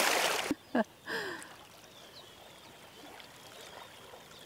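Loud rushing water-like noise that cuts off suddenly about half a second in, then two short sliding sounds, then low, steady water lapping at the shore.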